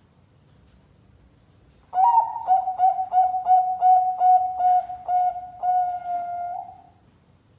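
Zebra dove (perkutut, Bangkok contest type) cooing one song that starts about two seconds in. It opens on a higher note, runs into a quick string of about a dozen short, even notes, and ends on a longer held note.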